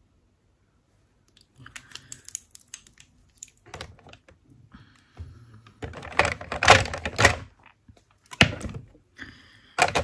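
Makeup containers and tools clicking and knocking as they are rummaged through and picked up, in irregular bursts of clicks starting about a second and a half in, loudest a little past the middle.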